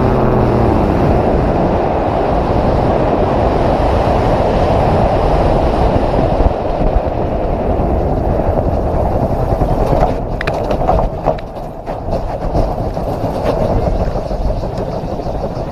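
A gyroplane engine's note sinks in pitch and dies out in the first second, leaving a steady rush of wind and airflow over the microphone as the aircraft glides down with the engine out. About ten seconds in there are a few knocks and rattles as it rolls through the tall grass of the field.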